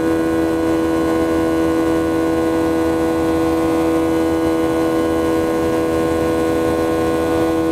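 Boeing 737's CFM56 turbofan engine running at climb power after takeoff, heard from inside the cabin over the wing: a steady drone with several steady pitched fan tones, the 'music of the rotors', over rushing air noise.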